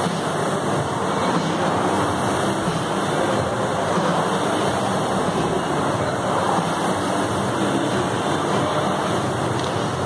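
Air rowing machine's flywheel fan spinning under hard, continuous rowing strokes, giving a steady rushing noise.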